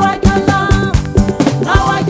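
Upbeat gospel music with a steady beat and held melody notes.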